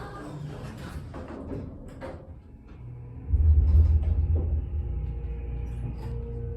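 Otis Series 1 elevator running: a loud low rumble starts suddenly a little after three seconds in and eases into a steady hum.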